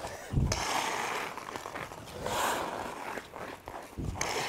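Hockey skate blades carving and scraping on ice in three hissing strokes, about half a second in, around two and a half seconds and near the end, as the skater pushes off and pivots; a low thump comes at the start of the first and last strokes.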